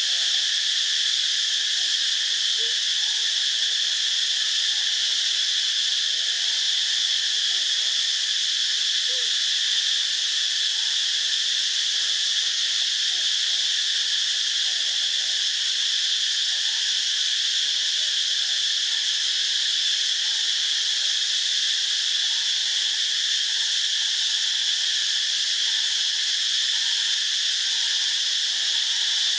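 Chorus of insects in the bamboo, a steady, high-pitched drone that holds at one level without a break.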